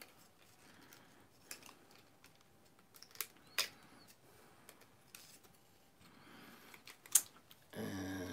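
Scattered small plastic clicks and snaps as the parts of a Top Gun Maverick F-14 Tomcat Transformers figure are moved and pressed into place by hand, with one sharp snap about seven seconds in. A short hum from the man near the end.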